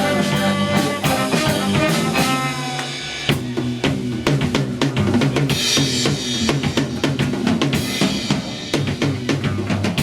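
Live rock band playing an instrumental passage. Held chords over drums for the first few seconds, then the drum kit takes over about three seconds in with a steady beat of bass drum, snare and rimshots under bass guitar.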